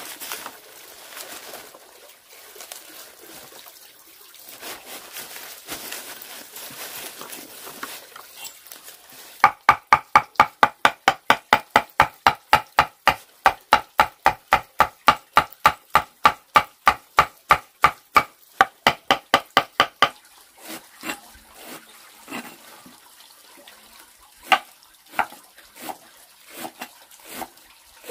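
A steady hiss, then a fast, even run of sharp knocks, about four a second, lasting about ten seconds, followed by a few scattered knocks.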